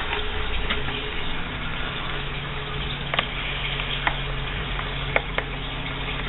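A few sharp small clicks of a screwdriver driving a screw into a plastic seat-post fender clamp, over a steady background hum.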